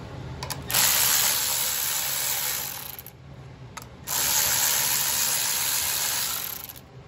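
Cordless power ratchet running twice, about two seconds each time, spinning off the 7/16 in. nuts that hold the carburetor assembly on a Briggs & Stratton engine.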